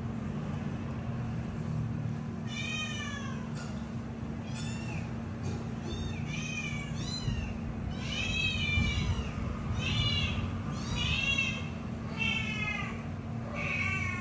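Kitten meowing over and over: about a dozen short, high-pitched mews that rise and fall, starting a couple of seconds in.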